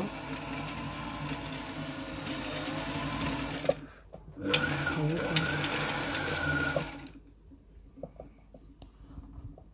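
Riccar 5600 sewing machine motor running under the foot pedal, driving the bobbin winder to wind thread onto the bobbin. It runs for about three and a half seconds, stops for a moment, runs again for about two and a half seconds, then stops two-thirds of the way through.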